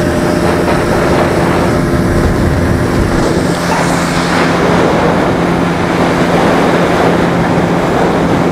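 Suzuki 9.9 hp outboard motor running steadily at speed, pushing an inflatable boat, with a steady low drone under a loud rush of wind and water.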